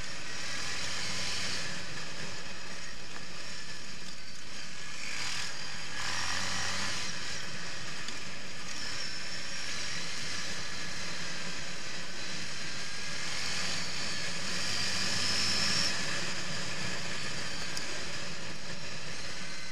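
Quad bike (ATV) engine running under way along a dirt track, heard together with a steady rush of wind noise; the engine's pitch rises and falls a little a few times.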